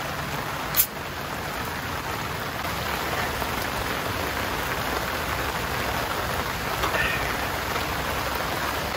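Steady rain falling, with a single sharp click about a second in.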